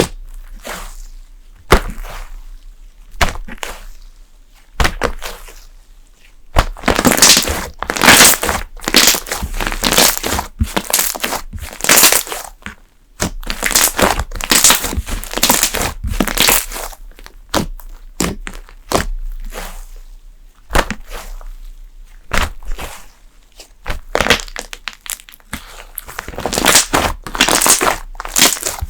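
Thick slime being squeezed and worked by hand, giving bursts of sharp crackling and clicking. The first few seconds hold only scattered clicks; after that the crackles come in dense, louder clusters with short pauses between them.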